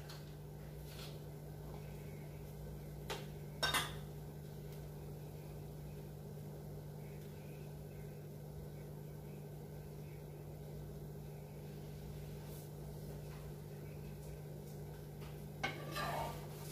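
Metal kitchenware clattering a few times: a metal spatula and a steel plate knocking against each other and the griddle, loudest about three and a half seconds in and again near the end. A steady low hum runs underneath.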